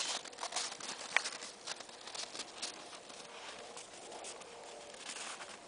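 Irregular crunching and scuffling of snow as a white shepherd puppy noses and scrambles about in deep snow, busiest in the first three seconds, with one short sharp sound about a second in.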